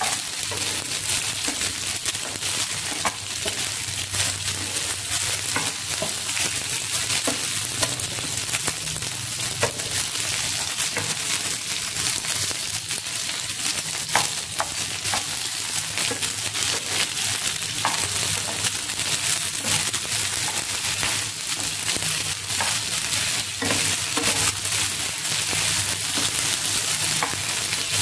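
Whole fresh red chillies sizzling steadily in hot oil in a non-stick pan as a spatula stirs them, with scattered small pops and crackles through the hiss.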